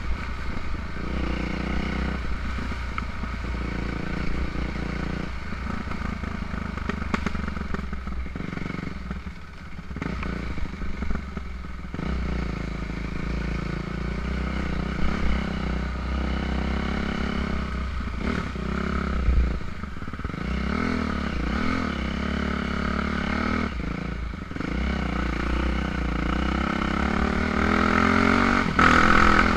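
Yamaha YZ450F dirt bike's single-cylinder four-stroke engine running at trail speed, the revs rising and falling with the throttle and getting louder near the end.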